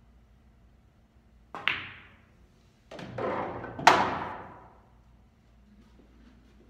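A pool shot: a sharp click of the cue striking the cue ball about a second and a half in, then a rattle of billiard balls and a loud, ringing knock near four seconds, as balls collide, run into the cushions and one drops into a pocket.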